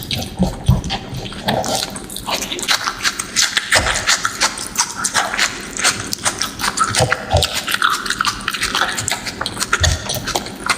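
Close-miked eating sounds: rapid wet chewing, lip-smacking and mouth clicks while eating rice with curry gravy.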